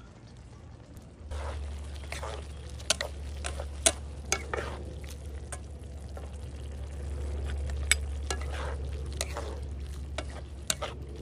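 Spatula stir-frying diced chicken, carrots and green beans in a wok, with frying sizzle under it. The food is scraped and tossed in repeated strokes, and the spatula knocks sharply against the pan several times. The sound starts about a second in, over a steady low hum.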